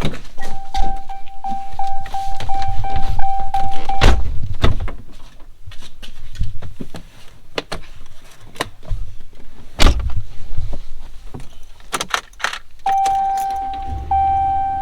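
A vehicle's door-open warning chime dinging steadily, with keys jangling and door and handling knocks, as someone gets into a vehicle to drive off. The chime stops about four seconds in and starts again near the end.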